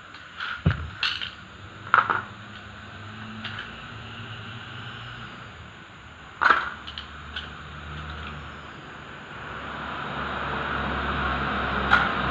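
Sharp metallic clicks and clinks as a screwdriver pries at a steel automatic-transmission clutch drum and its clutch plates are lifted out and set down, a few scattered strikes including a loud one about two seconds in and another past six seconds. In the last few seconds a steady rumble builds up in the background.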